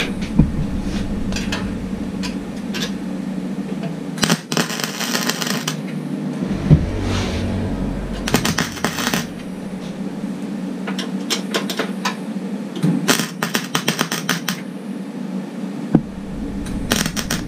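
MIG welder arc crackling in four short bursts, stitch-welding holes in thin steel door sheet metal that is burning through. A steady hum runs underneath.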